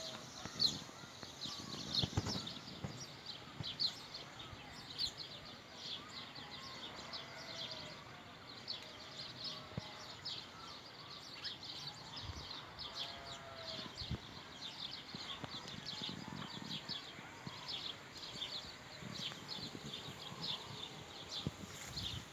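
Many small birds chirping rapidly and continuously, short high chirps overlapping throughout, with a few occasional soft thumps.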